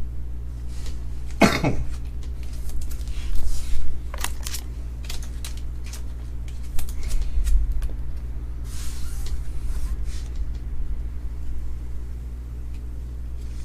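Cards and packaging being handled: scattered light clicks and rustles over a steady low electrical hum, with a short cough or throat sound about a second and a half in.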